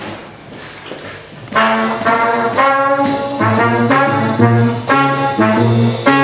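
A small jazz band comes in about one and a half seconds in: a trumpet plays a melody in separate notes over upright bass, electric guitar and drums.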